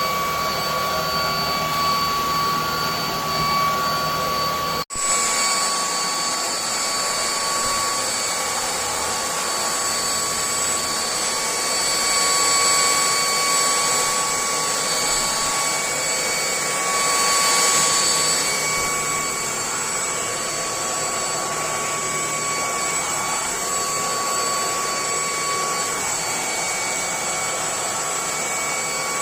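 Lubluelu 25.9 V cordless stick vacuum running steadily: a high motor whine over rushing air. About five seconds in the sound drops out for an instant and comes back with a slightly different whine.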